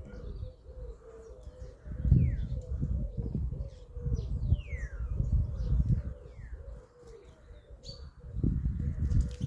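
Garden birds calling at a feeder: several quick whistled notes that slide downward in pitch, over a steady low tone. Loud low rumbling surges come and go beneath them, the loudest around two seconds in and again near the end.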